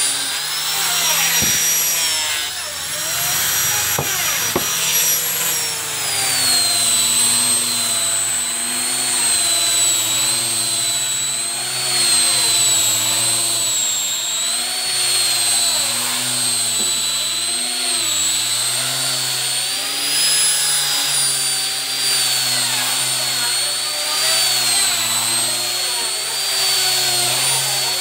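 Maktec hand grinder fitted with a 180-grit sanding disc, running continuously while sanding teak. Its high motor whine wavers up and down in pitch and drops a little about six seconds in.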